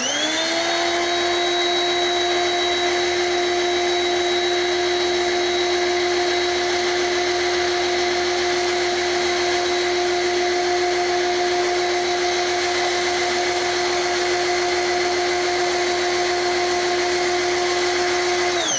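PowerSmart PS22 electric pressure washer's motor and pump running with a steady whine while the trigger is held and soap sprays from the fan tip. It spins up with a rising pitch at the start and winds down near the end as the trigger is released, the machine's auto on, auto off switching.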